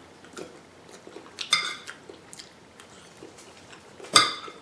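Metal fork clinking against a ceramic plate twice, about a second and a half in and again near the end, each with a short ring, with soft chewing in between.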